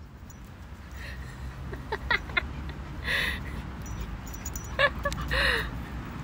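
A puppy giving a few short, high yips and whimpers during tug-of-war play with a larger dog, over a steady low rumble.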